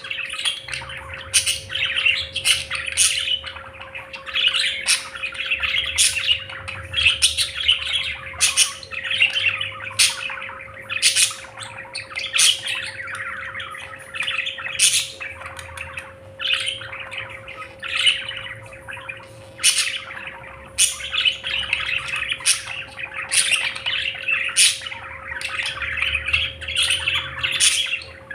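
A flock of budgerigars chattering continuously, with frequent sharp chirps and squawks over a busy warbling.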